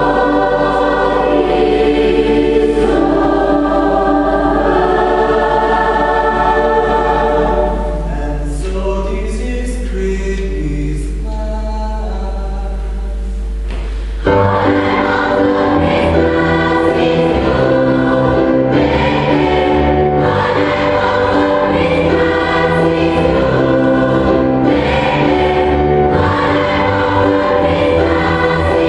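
Choir singing a Christmas song with keyboard accompaniment. The music thins to a quieter passage about eight seconds in, then a bass line and the full choir come back in strongly at about the halfway point.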